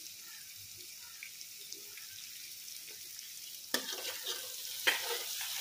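Spice masala paste sizzling gently as it is fried down in a metal wok. Near the end a metal spatula scrapes and stirs it, with two sharp scrapes about a second apart.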